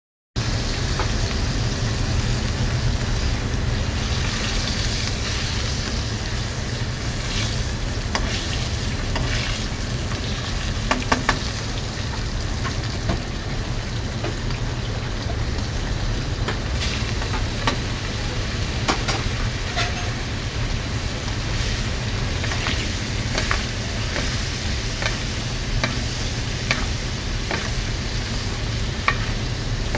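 Chateaubriand, a thick cut of beef tenderloin, sizzling as it cooks: a steady frying hiss with frequent scattered pops and crackles, over a steady low hum.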